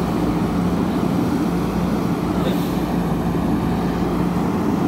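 JCB backhoe loader's diesel engine running at a steady pitch, a constant low drone with no change in speed.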